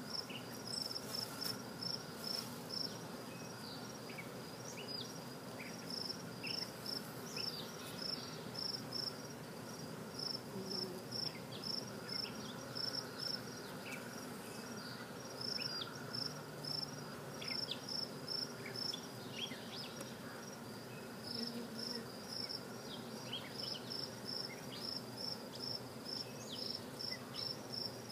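A cricket chirping in a steady rhythm of about three high chirps a second, with a few short breaks, over the low hum of a honey bee hive.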